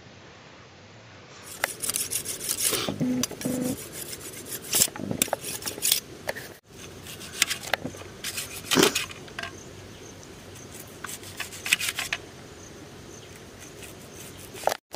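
Dishes and eating utensils clattering and scraping in quick, irregular clicks while food is eaten from plates.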